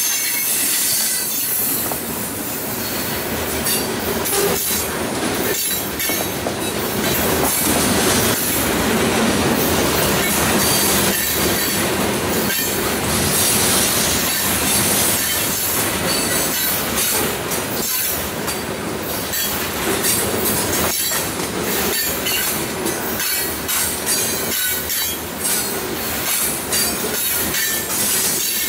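Loaded stone-train hopper cars rolling past: steel wheels on rail rumbling steadily, with frequent sharp clicks over rail joints and a thin high wheel squeal.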